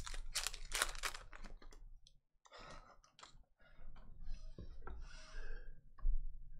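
Foil trading-card pack wrapper crinkling as it is torn open, densest in the first two seconds, then softer rustling and light clicks as the cards are slid out and handled.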